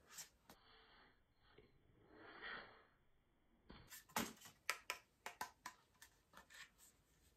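Near silence, then a run of faint clicks and taps from about four seconds in as the small Donner Vowel volume/wah pedal is handled and turned over in the hands.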